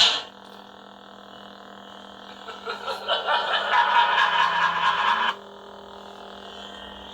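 Lightsaber sound effects played by a Proffieboard through the hilt's small 8 ohm speaker: a steady electric hum, with a louder, noisier effect of about three seconds in the middle that cuts off suddenly, leaving the hum.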